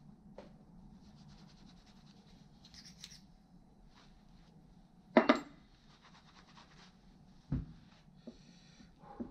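A cloth rag rubbing and scraping over small metal tool parts as they are wiped clean. There is a sharp metallic click about five seconds in and a softer knock about two seconds later as the parts are handled.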